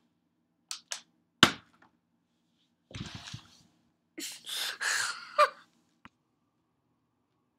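A plastic water bottle lands with one sharp smack on the wooden floor about a second and a half in, after two lighter clicks. Later come a duller thump with rustling, a stretch of breathy noise close to the microphone and one last small click.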